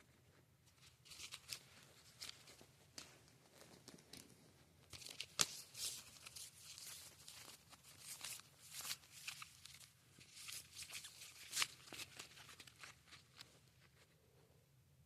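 Crinkling and rustling of plastic and card as Pokémon cards are handled, with a few sharp clicks. It starts about a second in and dies away near the end.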